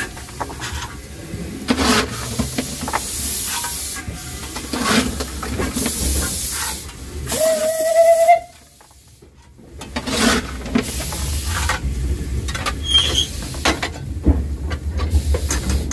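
A Baldwin steam locomotive being hand-fired: a coal shovel scrapes and clatters on the coal and the firehole, over a steady hiss of steam and the rumble of the fire. One short whistle-like tone sounds just before the middle.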